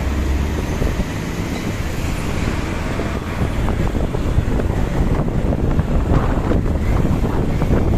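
Wind buffeting the microphone of a moving motorcycle, over steady engine and road noise, the gusts growing rougher in the second half.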